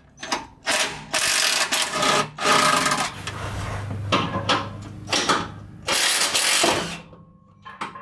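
Cordless drill with a socket spinning skid-plate bolts out, run in several short bursts with a longer, steadier run in the middle and a last burst near the end.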